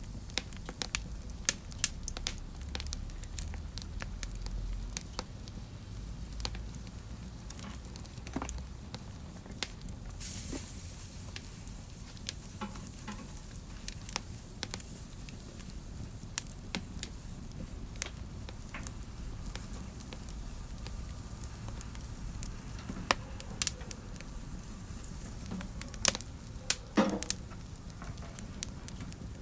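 Fire crackling in a fireplace: irregular sharp pops and snaps over a faint low rumble, with a short hiss about ten seconds in and a cluster of louder pops near the end.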